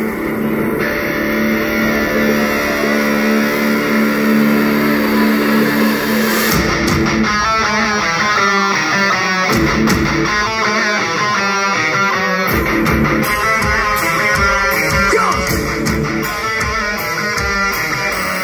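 A live rock band plays an instrumental passage, heard through a phone in the crowd. Held guitar notes ring for the first six seconds or so, then a fast electric guitar riff with drums takes over.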